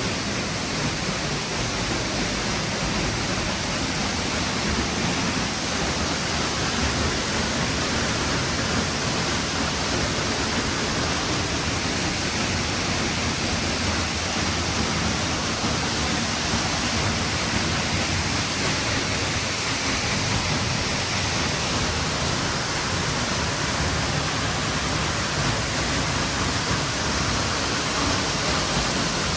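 Waterfall at Gibson's Cave (Summerhill Force) pouring into its plunge pool: a steady, unbroken rush of falling water.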